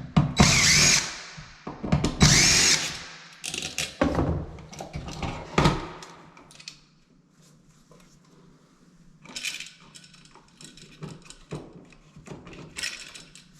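Cordless drill/driver running in two short bursts, its whine shifting in pitch, followed by lighter clicks and rattles of handling.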